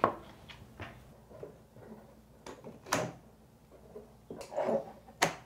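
Maple linkage pieces knocking and clacking as they are fitted together by hand: a few separate sharp clicks, the loudest about three seconds in and near the end.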